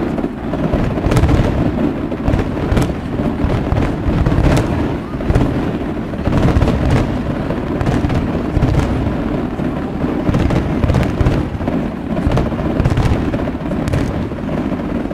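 Fireworks display going off in a dense, continuous barrage: a heavy rumble of booms with many sharp cracks on top.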